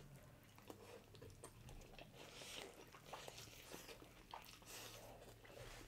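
Faint chewing and small mouth clicks of people eating birria tacos, over a low steady hum.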